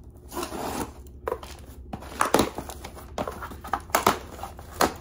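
Packaging being opened and handled by hand: a short rustle, then a string of sharp clicks and knocks at uneven gaps as the box and its contents are pulled apart.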